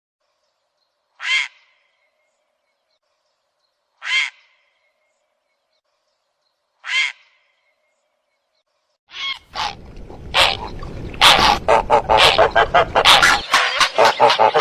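Harsh, croaking heron calls: three single calls about three seconds apart, then, from about nine seconds in, a dense chorus of many birds calling over one another.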